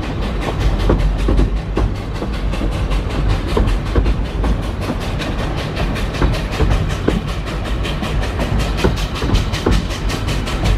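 Narrow-gauge steam train running, heard from an open carriage window: a steady rumble of the coaches' wheels on the rails with quick, even exhaust beats from the locomotive ahead.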